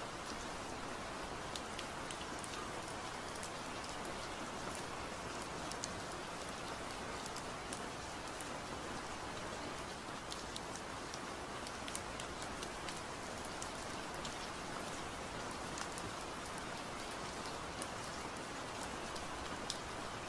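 Steady rain falling, an even hiss with scattered sharp ticks of single drops. No music can be heard over it.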